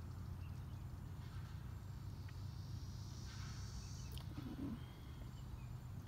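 Outdoor ambience of a faint, distant chorus of periodical cicadas: a high hiss that swells for a second or two about halfway through, over a low, steady background rumble.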